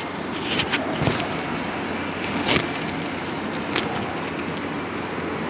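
Sheets of printed paper being handled and turned, giving a few short crinkles and rustles over a steady room hiss.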